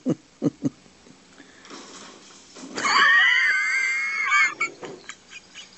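A loud, wavering screech from an animal, about a second and a half long, starting a little under three seconds in, with a few short, lower sounds in the first second.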